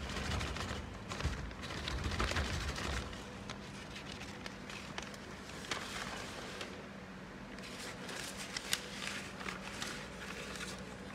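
Newspaper and paper rustling and crinkling as they are handled, in irregular bursts, busiest in the first few seconds and again near the end. A steady low hum runs underneath.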